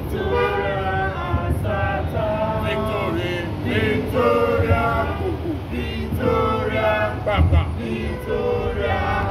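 A small group of protesters singing a song together, unaccompanied, in long held notes with short breaks between phrases.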